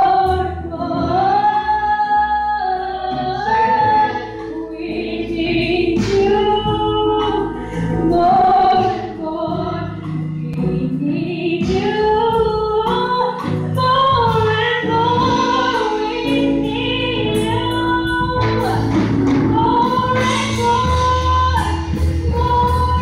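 Women singing a gospel song through microphones, a lead voice with long sustained, bending notes and other voices joining, over a low sustained accompaniment.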